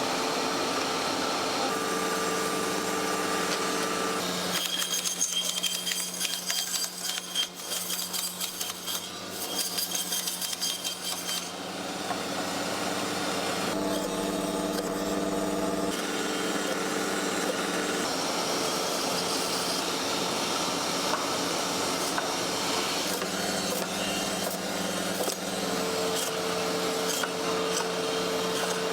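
Large meat-processing machine running with a steady motor hum. From about four seconds in to about twelve seconds there is a stretch of rapid clattering over the hum.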